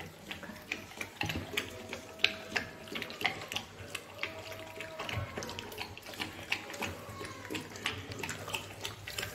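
A dog eating rice and chicken from a steel bowl: wet chewing and lapping, with many irregular short clicks against the bowl.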